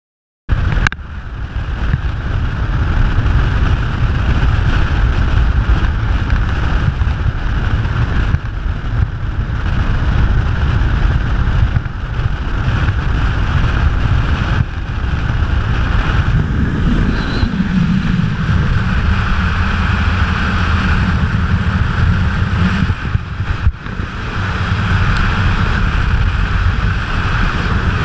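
Wind buffeting the microphone of a GoPro held on a pole out of a moving car's window, loud and steady, with road rumble underneath; it starts suddenly about half a second in, and a low hum joins for several seconds past the middle.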